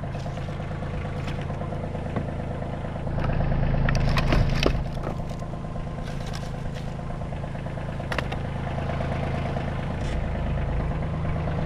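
An engine running steadily at idle, rising a little in level for a couple of seconds about three seconds in, with a few light knocks and clatter over it.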